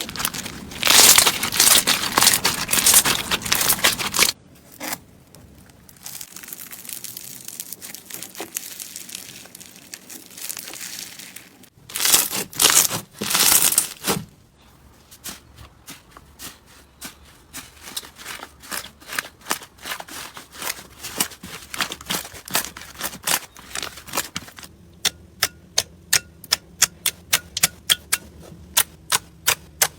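Slime being squeezed and poked by hand: crackly, crinkly squishing, loud for the first few seconds and again briefly about twelve seconds in. Near the end comes a run of sharp, regular pops, about two or three a second.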